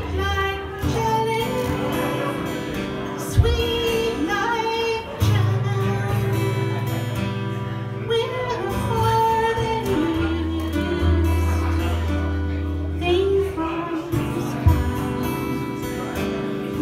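A woman singing a melody into a microphone, accompanied by a guitar, amplified through PA speakers.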